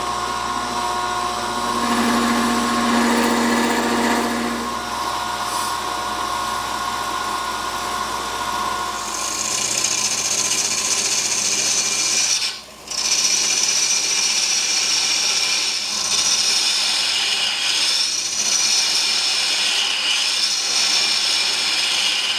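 Wood lathe spinning an epoxy resin blank loaded with iron shavings while a carbide turning tool cuts it, throwing off ribbons of resin shavings. A motor hum runs underneath. About nine seconds in, a brighter, hissing scrape of the cut takes over. There is a brief break near the middle.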